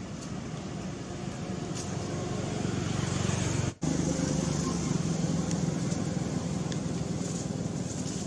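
Steady low outdoor rumble, broken by a brief dropout about four seconds in.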